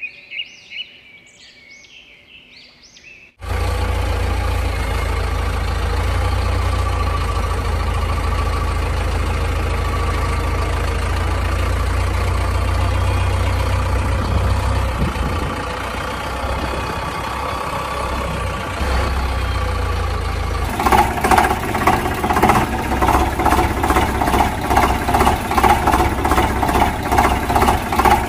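Birds chirping briefly, then a tractor engine sound that cuts in suddenly a few seconds in and runs steadily with a deep rumble. Near the end it changes to an even putter of about three beats a second.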